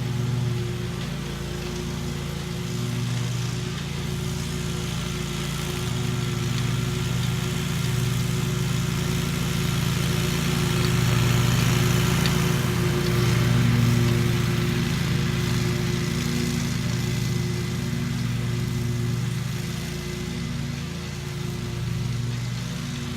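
An engine running at a steady speed, with its hum holding one even pitch and slowly swelling and fading in loudness.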